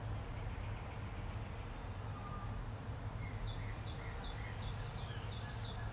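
Birds chirping: a few scattered high chirps and thin whistled notes, then a quick run of about eight chirps in the second half, over a steady low hum.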